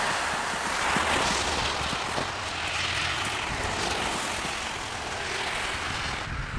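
A steady rushing hiss that swells and fades a few times over a low rumble, the broad noise of wind or passing traffic.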